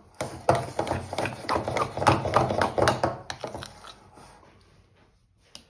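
A spoon working a thick, sticky dough of sourdough starter and light wholemeal flour in a glass bowl: quick, irregular wet slaps and knocks against the bowl. These go on for about three and a half seconds, then die away, with one small click near the end.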